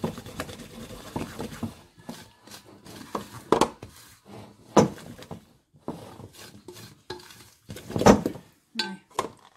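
A spoon stirring and scraping in a mixing bowl, creaming butter, peanut butter and sugar. Quick strokes run through the first two seconds, then come separate louder knocks against the bowl about three and a half, five and eight seconds in.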